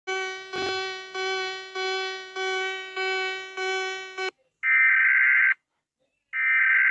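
Emergency alert alarm tones: a clear pitched tone pulsing about eight times, each pulse fading, then after about four and a half seconds a harsher, higher alarm tone sounding in two one-second blasts with short gaps.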